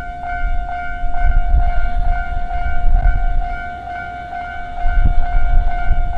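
Japanese level-crossing warning bell ringing steadily at about two strokes a second, while a train rumbles through the crossing, loudest about a second in and again near the end.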